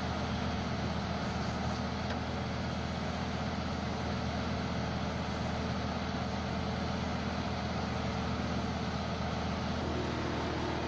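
Fire engine running steadily to pump water, a low engine hum under the hiss of a fire hose spraying; the hum shifts slightly near the end.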